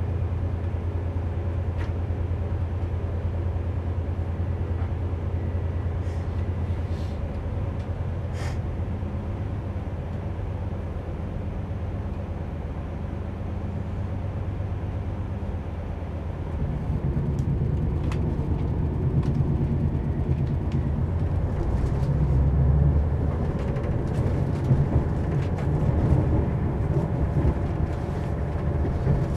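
Inside a passenger train: a steady low hum while it stands at a platform, then from about 16 seconds in a louder, rougher rumble as the train runs along the track, with occasional clicks.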